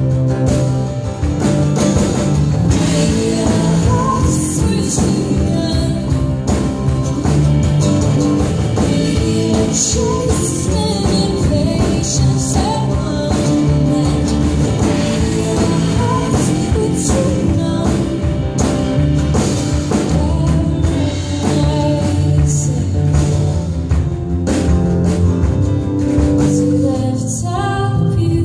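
Live folk song: two acoustic guitars playing, with a woman singing the lead.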